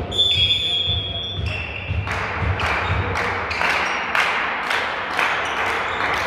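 A referee's whistle blowing one steady high note for about a second and a half, followed from about two seconds in by a regular run of sharp claps or beats, about three a second.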